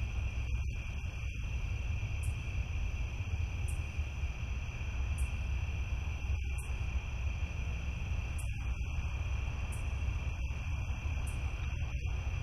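Night insect chorus: a steady high cricket trill with a faint short chirp above it repeating about every second and a half, over a steady low rumble.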